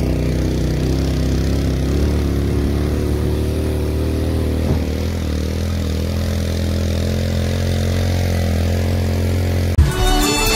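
A motor vehicle's engine runs at a steady speed while travelling. Near the end it cuts off abruptly and music starts.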